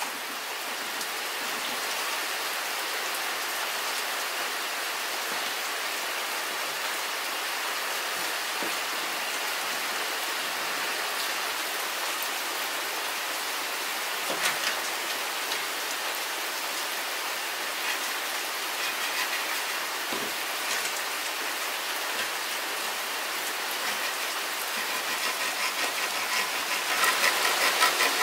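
Steady rain falling, with a few isolated drips or knocks. Near the end, a serrated saw rasps back and forth through a green bamboo tube in quick, even strokes.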